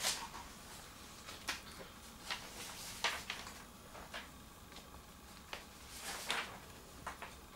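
Sheets of paper being handled and turned: a handful of brief rustles and soft clicks, the loudest right at the start and about three and six seconds in.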